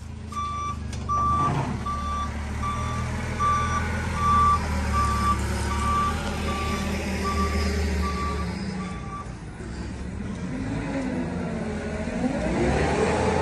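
A vehicle backup alarm beeps at one steady pitch about every 0.7 s, some dozen beeps, over the low rumble of a truck diesel. The beeping stops about two-thirds of the way through, and near the end an engine note rises and falls.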